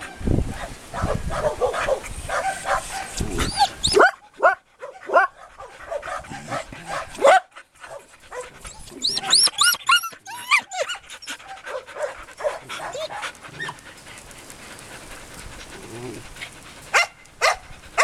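Medium-sized dog whining and yipping excitedly in short, high cries that bend up and down, with some barking and panting. Two loud, sharp sounds come near the end.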